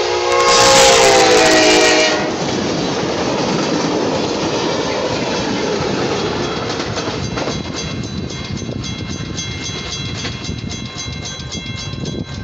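Passenger train locomotive horn sounding, loudest and dipping slightly in pitch before it stops about two seconds in. The train's cars then rumble and clatter past over the grade crossing. Through the second half the crossing's warning bell rings in rapid, even strokes.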